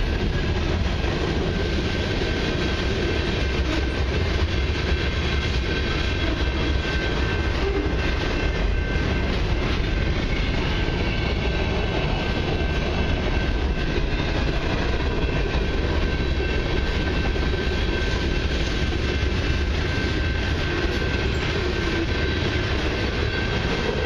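Freight cars of a long mixed freight train rolling steadily past a level crossing. A continuous rumble of wheels on rail is joined by a faint steady high-pitched tone.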